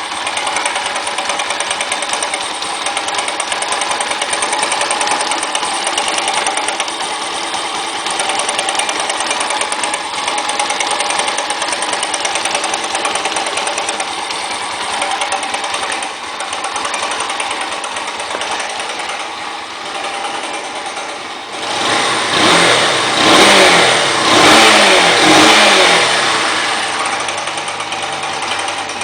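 Dafra Riva 150's single-cylinder four-stroke engine running with a rapid knocking tap, then revved up and down several times about 22 seconds in. The valves are freshly set to spec, so the mechanic suspects piston parts such as the piston pin or skirt rather than the valve train.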